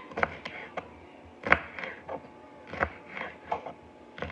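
Large kitchen knife slicing small sweet peppers on a cutting board: irregular knocks of the blade striking the board, the loudest about a second and a half in.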